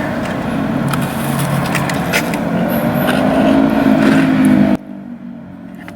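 A motor vehicle engine running loudly, its pitch rising slowly, then cutting off suddenly about five seconds in.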